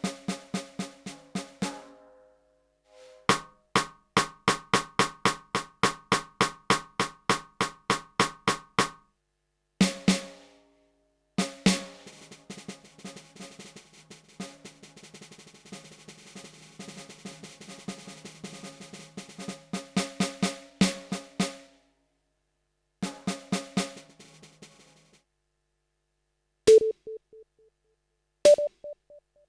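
Electronic snare sound from a Roland TD-12 module, triggered by a drumstick on a just-repaired V-Drums mesh snare pad as its response is tested: an even run of single strokes, then a roll that swells louder, then a few scattered hits. Near the end come two single strikes with a different pitched tone.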